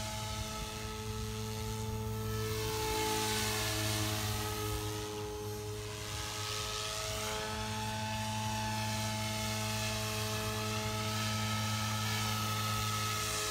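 Goblin 420 electric RC helicopter in flight: a steady, even whine from its motor and spinning rotor head, with a whooshing haze above it that shifts slowly in pitch.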